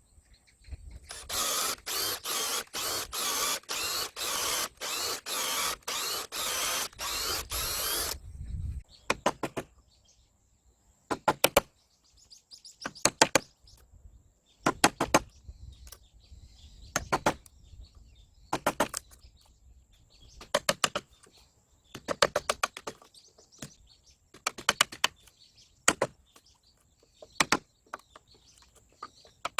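Hand tool work on wood: about seven seconds of rhythmic rasping strokes, roughly one and a half a second, that stop suddenly. Then come short clusters of rapid clicks every couple of seconds.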